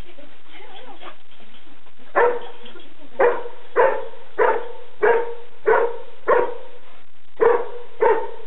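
Search-and-rescue dog barking repeatedly, about nine short sharp barks at a steady pace, starting about two seconds in: the bark indication a rubble-search dog gives when it has found a hidden person.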